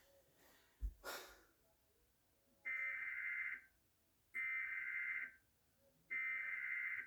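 Emergency Alert System SAME header: three screeching bursts of digital data tones, each about a second long and about a second apart, sent at the start of a tornado warning broadcast. A short knock and a brief rush of noise come about a second in.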